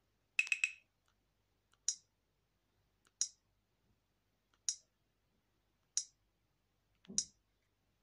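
Alcatel OT-880 phone's short, high key-press clicks as its menus are stepped through: a quick cluster about half a second in, then five single clicks spaced about 1.3 seconds apart. A soft handling thump comes with the last click.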